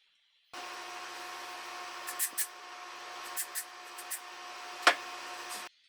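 A steady machine-like hum with a faint whine, broken by several light clicks and one sharp click near the end; it starts and stops abruptly.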